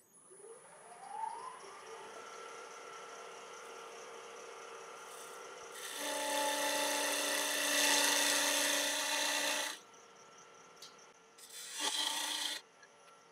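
Wood lathe motor spinning up with a rising whine, then running with a steady hum while a parting tool cuts into the spinning ash blank. There is a loud cut of about four seconds starting some six seconds in, and a shorter cut near the end.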